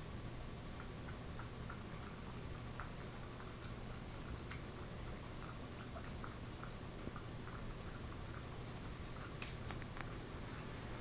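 Faint, irregular little clicks and rustles over a steady hiss and low hum: a chihuahua puppy nibbling at itself and shifting about on a bed cover.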